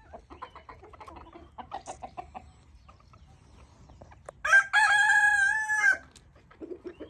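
Chickens clucking softly, then a rooster crowing loudly about halfway through with one long held crow of about a second and a half.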